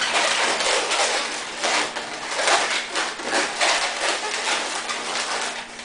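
Latex modelling balloons being twisted and squeezed by hand: a dense, continuous rubbing of the rubber made of many short strokes, starting abruptly.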